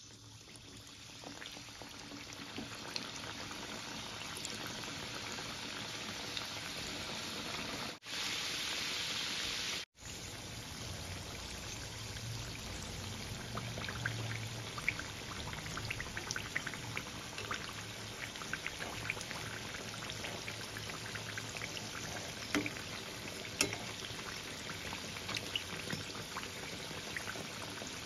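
Hot oil sizzling and crackling around labanga lata pastries deep-frying in a wok, with many small pops. It builds up over the first couple of seconds as the first pastry goes into the oil, then holds steady, breaking off briefly twice about a third of the way in.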